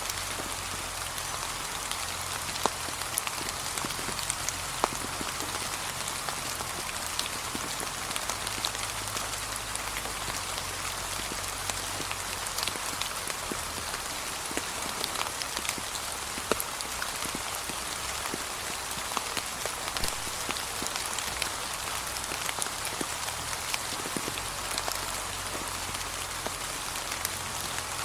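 Gentle, steady rain falling on a path of fallen autumn leaves: a constant soft hiss with many scattered individual drops ticking through it.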